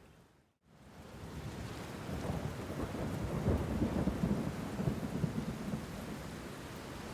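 Rain falling with thunder rumbling. The sound cuts to a brief silence just after the start, fades back in, and swells with low rolling thunder from about two seconds in to about five.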